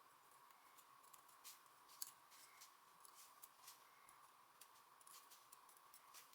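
Near silence with faint, scattered small clicks and ticks from small tools and parts as a Nikon S2 rangefinder camera is taken apart.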